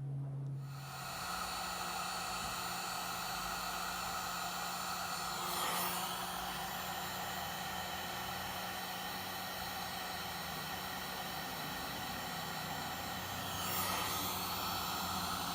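Heat gun switched on about a second in, then blowing steadily as it shrinks solder-seal heat-shrink wire connectors and melts their solder rings.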